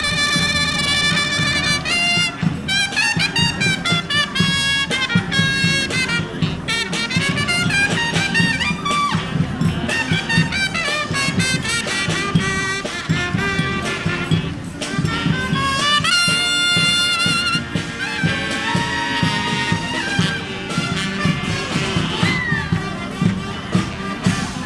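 Street brass band playing in a march: horns carry the melody over a steady beat.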